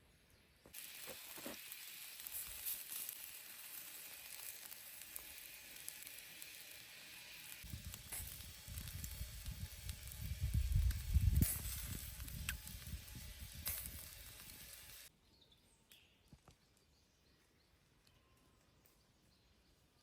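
Food sizzling over a wood fire: a steady hiss with a few small crackles that starts abruptly about a second in and cuts off suddenly three quarters of the way through. A low rumble joins about halfway and is loudest just after the middle.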